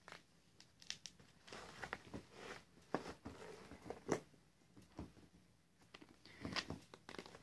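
A paintbrush and a plastic paint palette being handled: scattered light clicks and taps with a few brief scrubbing sounds as the brush works in the paint.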